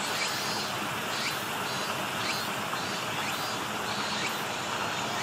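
Steady outdoor background noise with a faint short chirp repeating roughly once a second.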